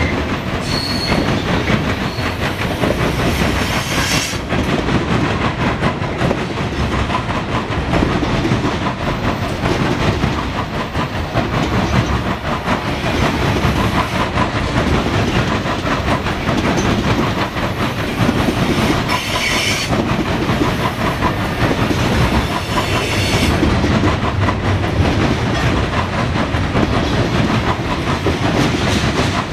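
Norfolk Southern coal train's hopper cars rolling past: steady wheel-on-rail noise with a clickety-clack rhythm of wheels over rail joints, and brief high-pitched wheel squeals a few times.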